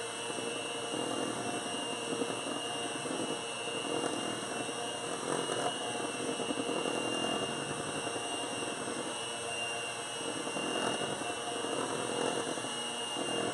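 Electric hand mixer running steadily, its beaters whipping thick pound cake batter in a stainless steel bowl, with a constant high motor whine.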